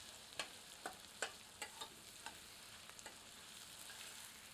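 Sliced onions frying in oil in a stainless steel pressure cooker, stirred with a metal spoon: a faint sizzle with a string of light clicks and scrapes of the spoon against the pot, mostly in the first three seconds.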